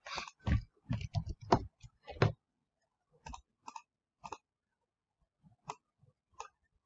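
Laptop keyboard keys typed in a quick run of about eight strokes, then a handful of single mouse clicks spaced out, scrolling through a list.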